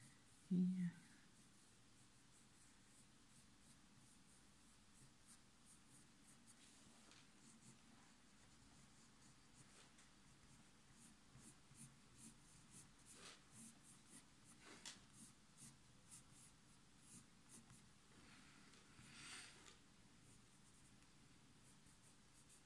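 Faint scratching of a coloured pencil shading on drawing paper, in many short, light strokes. There is a brief low sound about half a second in.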